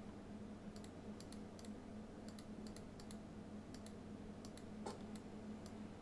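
Faint, irregular clicks of a computer mouse, a few a second, with one slightly louder click near the end. Under them is a steady low hum.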